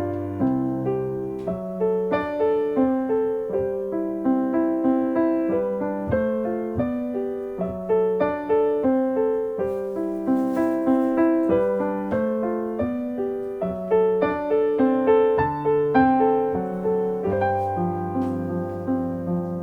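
Background piano music: a gentle, flowing melody of steady single notes over low sustained chords.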